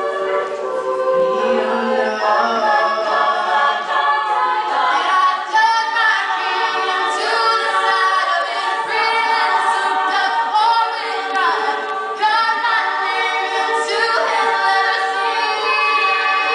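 All-female a cappella group singing, a lead voice into a microphone over the rest of the group's backing harmonies.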